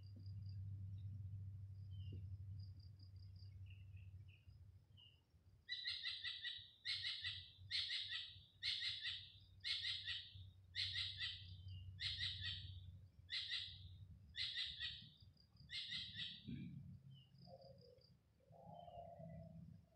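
A bird calling in a series of about ten loud, evenly spaced notes, roughly one a second, starting about six seconds in and stopping around sixteen seconds. Other birds chirp faintly throughout.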